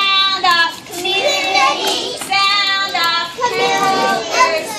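A group of young children singing a song together, with several held notes.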